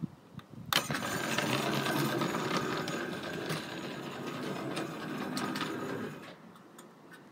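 G-scale battery-electric model locomotive pulling away: its motor and gears start suddenly with a whir, and the wheels tick and rattle over the track, fading as it moves off.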